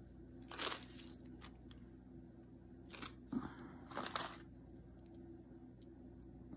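Quiet handling noises: a few brief, soft rustles and crinkles as small resin flower cabochons and their plastic packet are handled, over a faint steady hum.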